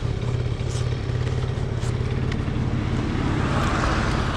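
Motor scooter's engine idling steadily while stopped, with a car driving past near the end.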